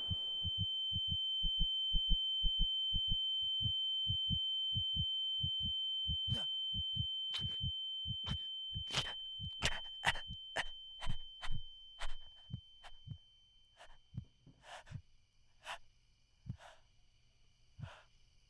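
Sound-design heartbeat: low, regular thumps at about three a second that slow and thin out to one every second or more, with sharp clicks joining them about a third of the way in. A steady high ringing tone sounds over them and fades out about two-thirds through.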